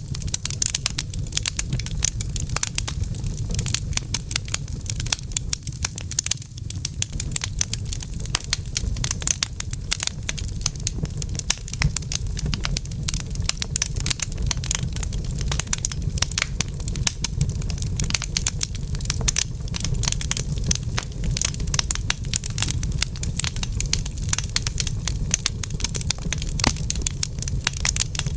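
Wood fire crackling in a fireplace: dense, irregular pops and snaps over a steady low rumble.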